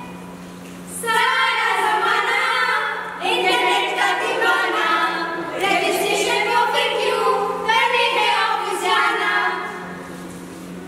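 A group of voices singing together without instruments, in several held phrases that start about a second in and fade shortly before the end.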